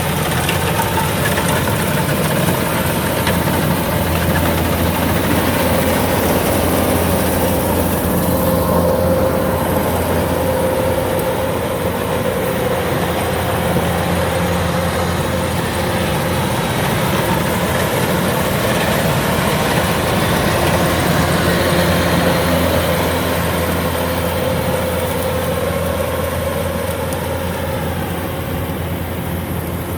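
Kubota rice combine harvesters running steadily while harvesting: a continuous diesel engine drone with a steady whine, holding level throughout.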